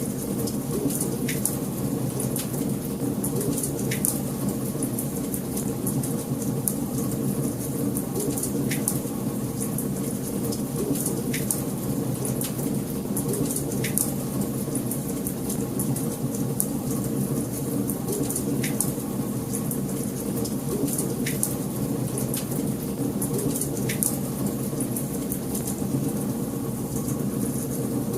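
Wood fire crackling in a fireplace: a steady low rumble of burning with sharp pops and crackles scattered throughout.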